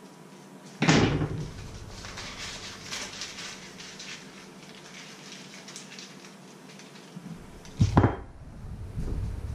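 A sharp knock about a second in, then the foil wrapper of a block of butter crinkling irregularly as it is folded in the hands, and another knock near the end as things are set down on a wooden cutting board.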